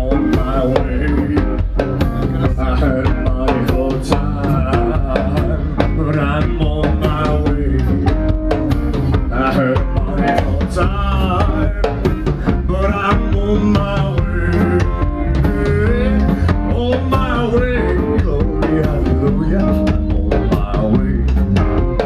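Live band playing a song: a man singing over a drum kit keeping a steady beat, with guitar.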